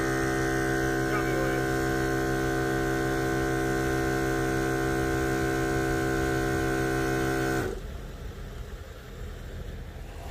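A loud, steady droning hum made of many even tones, which cuts off abruptly nearly eight seconds in and leaves a quieter hiss.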